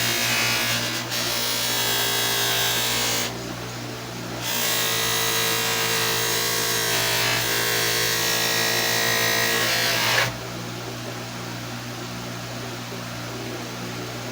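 Electric motor running a spinning fiber wheel while a pair of steel lineman's pliers is pressed against it, a loud hissing grind. The grind breaks off for about a second some three seconds in, resumes, then stops about ten seconds in, leaving the motor's steady hum.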